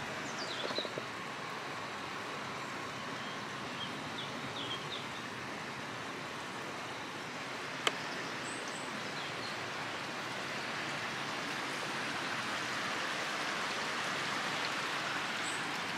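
Shallow river running over rocks and stones, a steady rushing that grows a little louder in the second half. A few faint bird chirps, and a single sharp click about eight seconds in.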